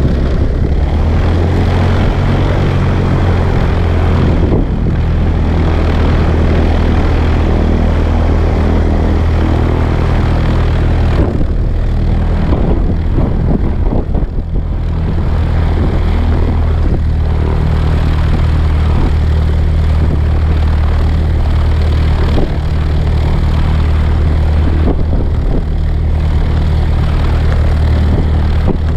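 Piper Cherokee's piston engine and propeller running steadily, a low hum under a constant rush of air noise, picked up by a camera on the tail stabilator.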